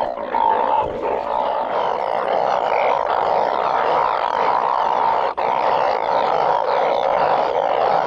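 Dense, loud chorus of many narrow-mouthed frogs (อึ่งอ่าง) calling together from rain-flooded water after a storm, a steady seething din, broken only by one very brief dropout about five seconds in.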